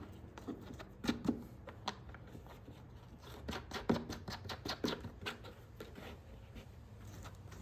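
Light plastic clicks and taps of the air-filter cover being seated on a Vanguard 18 hp engine and its retaining knob turned down by hand, with a quicker run of clicks about halfway through.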